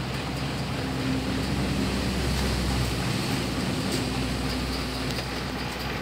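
A vehicle engine running steadily with a low hum, swelling slightly a couple of seconds in, over a wash of outdoor noise.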